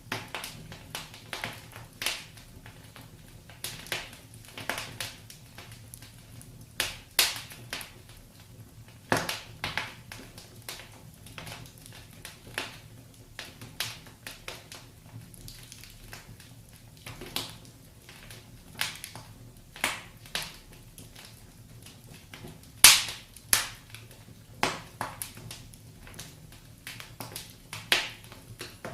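Wood fire burning in a fireplace: irregular crackles and sharp pops every second or so, the loudest pop about 23 s in, over a faint low hum.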